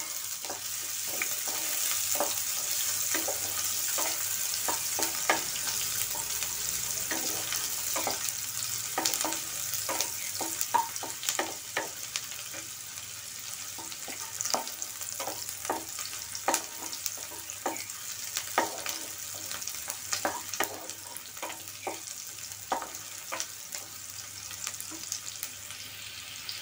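Chopped onion, just added, sizzling in hot oil in a kadai, with a wooden spoon scraping and knocking against the pan many times as it is stirred. The sizzle is strongest over the first few seconds and eases a little after that.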